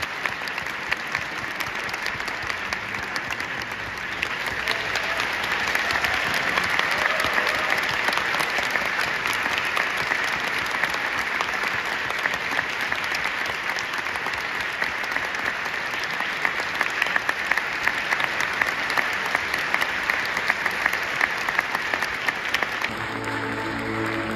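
A large theatre audience applauding steadily, a little louder from about six seconds in; music comes in near the end.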